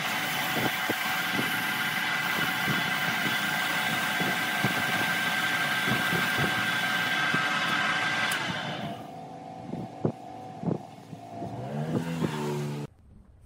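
Wood lathe running, its motor humming steadily under the hiss of a bundle of sandpaper strips pressed against the spinning workpiece. About two-thirds of the way in the sanding stops and the lathe winds down, with a few light knocks, before the sound cuts off near the end.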